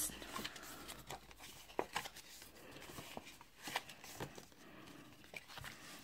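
A strip of white cardstock, scored every centimetre, being folded along its score lines by hand: faint, scattered crackles and rubs of stiff paper, with a few sharper ticks.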